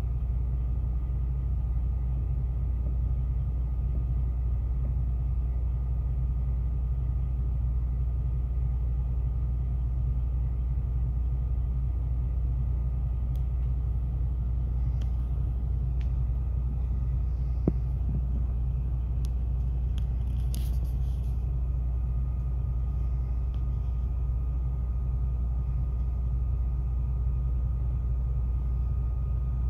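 Steady low rumble of an idling diesel truck engine, with a faint steady whine over it. A few faint clicks or pops come in the middle.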